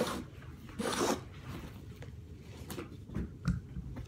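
Utility knife slicing through bonded-foam (rebond) carpet pad along the tack strip: a short cutting stroke at the start and another about a second in, then quieter with a few soft knocks.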